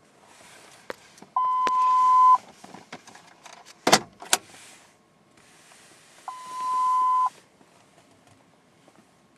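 Two steady one-second electronic beeps from a 1993 Lincoln Continental, each heard over a brief whirring hiss, with a few sharp clicks between them about four seconds in.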